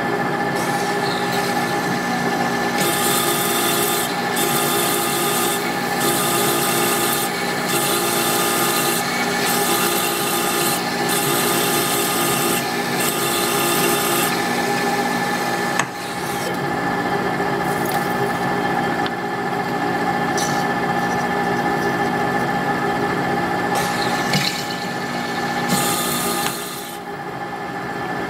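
Monarch lathe running with a steady gear whine while a twist drill from the tailstock drills a deep hole into 1144 Stressproof steel. The cutting comes as a series of short scraping bursts about once a second for the first half, then again near the end.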